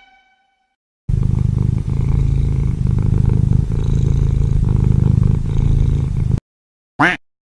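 Domestic cat purring, loud and steady, starting about a second in and lasting about five seconds before cutting off sharply. A brief gliding pitched blip follows near the end.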